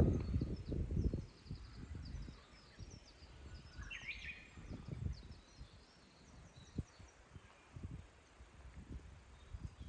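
Small birds chirping with short, high, repeated calls, and a louder call about four seconds in. Wind rumbles on the microphone, strongest in the first second.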